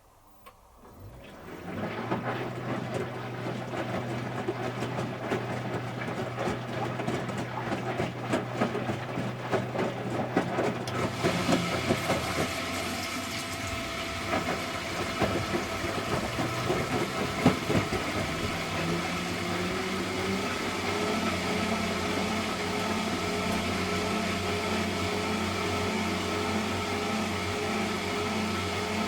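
Electrolux Wascator W355H commercial washing machine running: its motor hum and a rushing of water start about a second in. About two-thirds of the way through, the motor tone steps up and settles into an even, pulsing hum as the drum turns.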